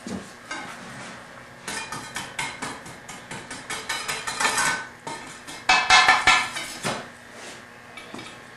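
A hand tool scraping and clinking against a freshly cast aluminum plaque, clearing moulding sand off it: a run of quick scrapes and clicks, with a louder burst about six seconds in.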